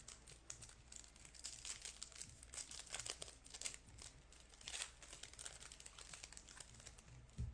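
Foil wrapper of a trading card pack being torn open and crinkled by hand: a faint, irregular run of crackles and rustles, with a soft low thump near the end.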